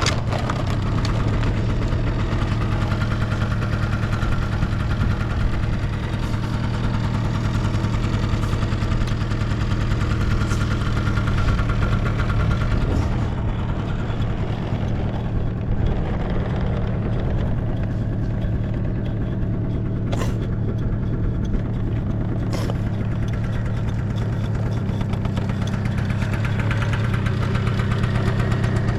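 Honda Live Dio AF34 scooter's 49 cc single-cylinder two-stroke engine catches from a cold start and settles into a steady idle with no abnormal noises. Two sharp clicks come about two thirds of the way through.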